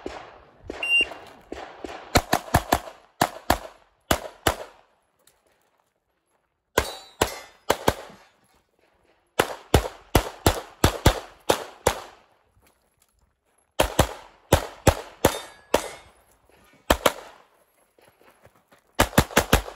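A shot timer's start beep about a second in, then a CZ Shadow 2 pistol fired rapidly in quick pairs and strings, with pauses of a second or two between groups of shots.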